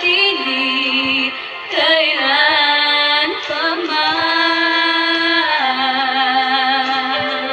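A woman singing a slow prayer song solo, holding long notes with vibrato and sliding between them.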